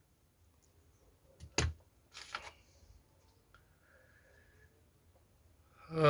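Mostly quiet small room with a sharp click about one and a half seconds in, a fainter click just before it, and a brief rustle just after.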